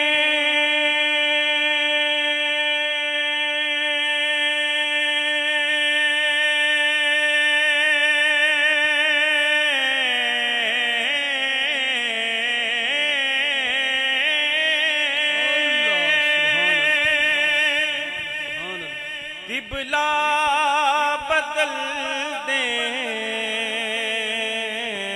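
A solo male voice singing a naat into a microphone: he holds one long steady note for about ten seconds, then breaks into a wavering, ornamented run of notes that dips briefly and picks up again.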